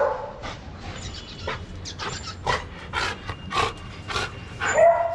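Dalmatian panting, with quick open-mouthed breaths at about two a second.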